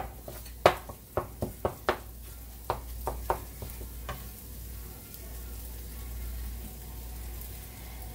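Wooden spatula knocking and scraping against a metal skillet as eggs are stirred and scrambled, over a steady sizzle of the eggs frying in oil. The knocks stop about four seconds in, leaving only the sizzle.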